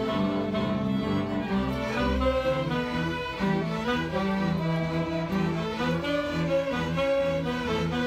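Youth orchestra playing together, with violins and other bowed strings to the fore and a double bass underneath, holding overlapping notes without a break.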